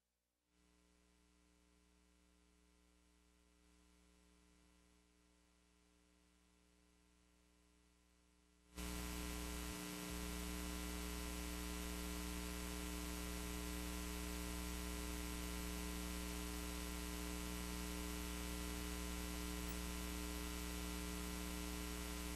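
Near silence, then about nine seconds in a steady electrical mains hum cuts in suddenly and holds unchanged: hum on the broadcast audio feed, a sign of the studio's audio fault.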